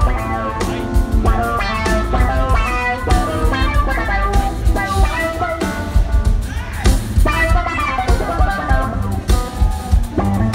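Live band music: electric bass, keyboards and a drum kit playing together, with steady drum strikes under the bass and keyboard lines.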